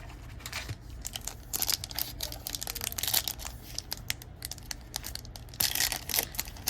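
Hockey card pack wrapper crinkling and rustling as it is handled and torn, with many small irregular clicks of cards being handled; the rustling is loudest a little before the end.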